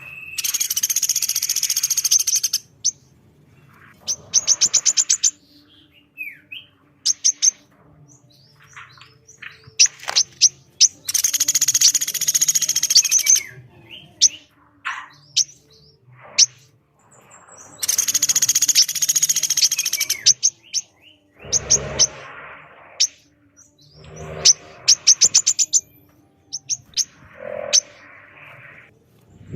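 Pelatuk beras woodpecker and a female korlap songbird calling: three harsh, rasping calls of about two seconds each, with quick strings of sharp, high ticking notes and shorter chips in between.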